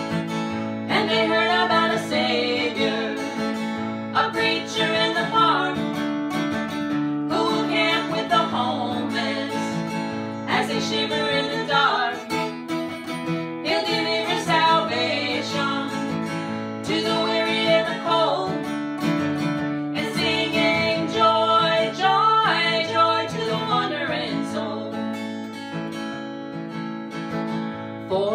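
Folk song played on acoustic guitar, strummed steadily, with a melody line carried over the chords.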